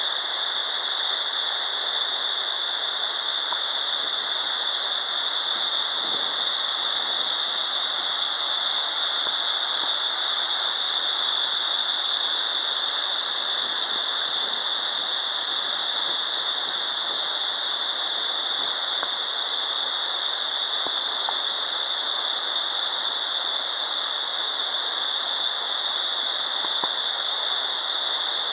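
Steady rush of a 48 m branching waterfall: a constant, even hiss with little low rumble and no change throughout.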